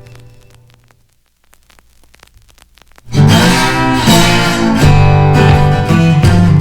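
Background music: one tune fades out, a brief near-silent gap follows, then a strummed guitar track starts loud about three seconds in.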